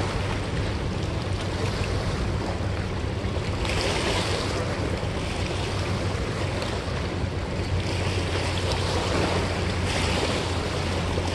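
River water splashing and lapping against the rocky bank, with wind rumbling on the microphone. Two brief louder surges of hiss come about four and eight seconds in.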